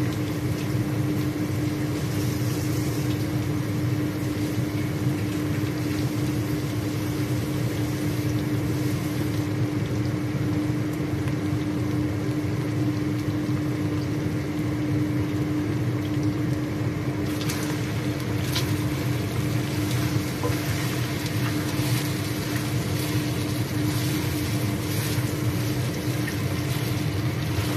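Raw chicken pieces sizzling in hot oil in a wok, a steady frying hiss over a constant low hum. From about halfway through, sharper crackles and clicks come through.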